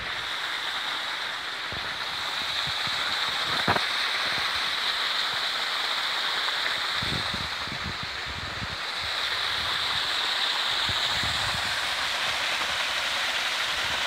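Small, low-flow waterfall pouring into a rock pool: a steady rushing, splashing hiss of falling water that grows a little louder in the second half. A few dull low thumps come in around the middle.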